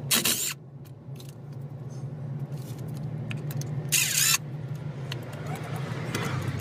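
Cordless impact wrench hammering rusted 13 mm differential cover bolts loose: two short bursts, one at the start and one about four seconds in, each about half a second long, over a steady low hum.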